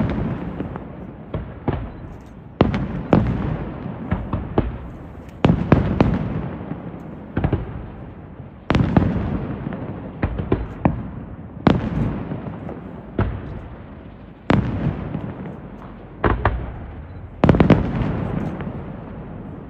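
Aerial fireworks shells bursting one after another, a sharp bang every second or two, each followed by a rolling echo that fades away. A quick cluster of loud bursts comes near the end.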